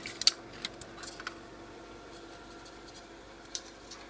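Light clicks and rattles of a metal tape measure being handled against a knife, mostly in the first second or so, with one more click near the end, over a faint steady hum.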